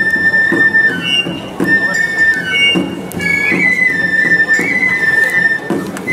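Ming-Qing style (minshingaku) festival music: a shrill flute holding long high notes that step between a few pitches, over a drum beating about twice a second.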